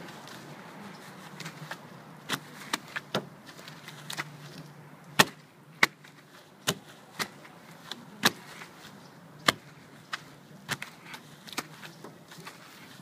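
A wash mitt rubbing and wiping over a vehicle's window glass, with a scattering of sharp, irregular clicks and taps over a faint low hum.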